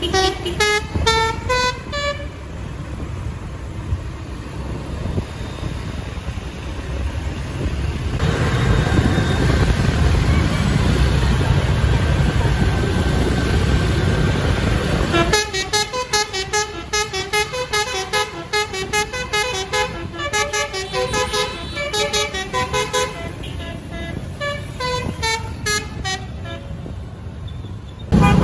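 Bus 'telolet basuri' multi-tone musical air horn playing quick stepped notes: a rising run at the start, then, after a stretch of loud vehicle rumble, a long fast melody from about halfway in that ends in a falling cascade of notes.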